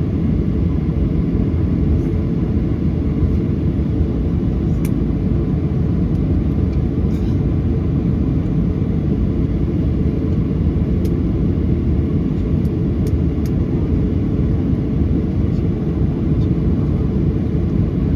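Steady rumble of a Boeing 737-800's CFM56-7B jet engines and airflow heard inside the cabin, with a few faint ticks.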